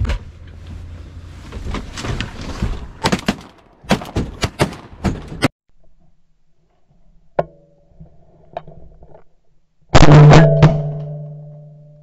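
A run of sharp knocks and clatter of gear, then about ten seconds in a sudden, very loud shotgun shot heard through a gun-mounted camera, ringing and fading over about two seconds.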